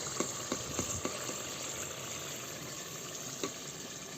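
Chicken frying in oil: a steady sizzle with scattered small pops and crackles.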